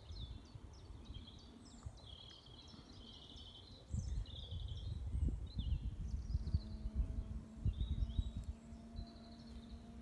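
Small birds chirping and trilling in short, repeated phrases throughout, over a low rumble on the microphone that grows louder about four seconds in. A faint steady drone joins in a little past the middle.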